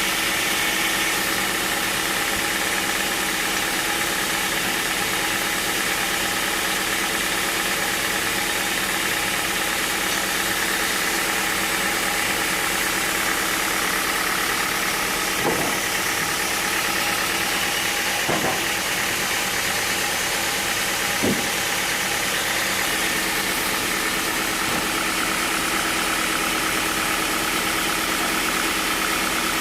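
Sawmill machinery running steadily with a constant hum and hiss, with three brief knocks about halfway through.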